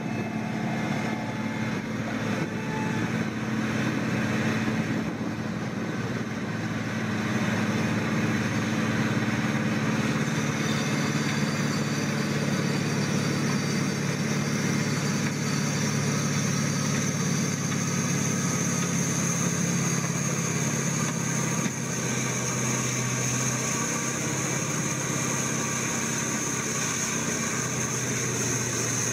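Diesel engine of a large wheeled Wirtgen WR soil stabilizer running steadily under load as it churns through a dirt roadbed with its mixing rotor, with a steady high whine joining about a third of the way in.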